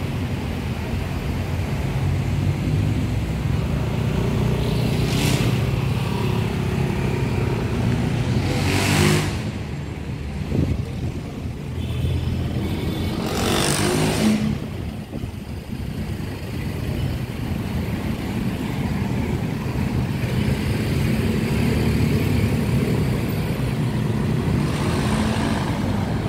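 Busy street traffic: a steady low rumble of car and motorcycle engines, with three vehicles passing close by, each swelling and fading in a rush of noise, about 5, 9 and 14 seconds in.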